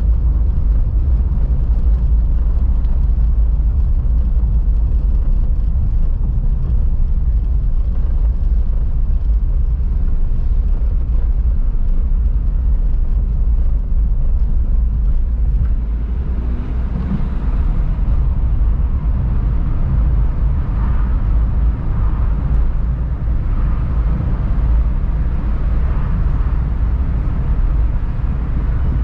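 A car driving: a steady, deep rumble of engine and road noise, with a faint higher hum joining from about halfway through.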